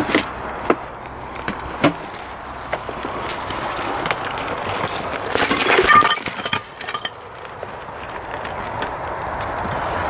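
Footsteps pushing through dense undergrowth: twigs snapping in sharp separate cracks, with leaves and branches rustling, loudest about six seconds in.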